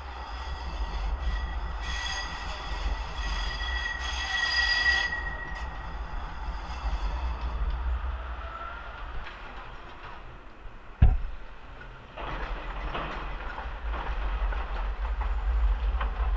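Škoda 15T low-floor tram rolling past on a curve, its wheels squealing on the rails with a high, steady tone for the first five seconds or so, then fading to rolling noise. A sudden sharp knock about eleven seconds in, then another tram rolling by, with low wind rumble on the microphone.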